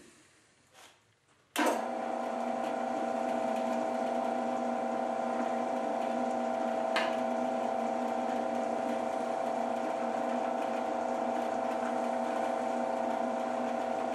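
Small drill press switched on about one and a half seconds in, its motor and spindle then running with a steady hum. Before it starts there are a few light clicks.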